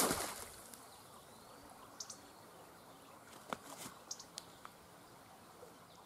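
A wire-mesh minnow trap thrown into a creek hits the water with a single splash, then quiet outdoor background with a few faint ticks.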